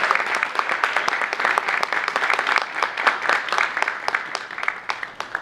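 Audience applauding, the clapping slowly thinning out and dying away near the end.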